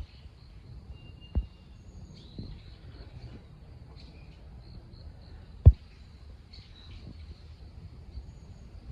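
Outdoor park ambience: a low rumble with faint, scattered high chirps of birds. Two dull thumps stand out, one about a second and a half in and a louder one a little past the middle.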